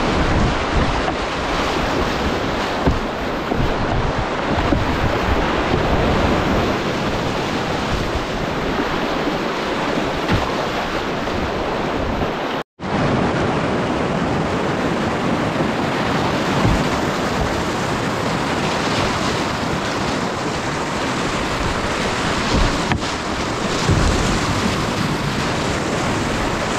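Rushing whitewater of a class II–III creek rapid, a loud, steady rush heard from a kayak running through it, with a few low thumps. The sound cuts out completely for an instant about halfway through.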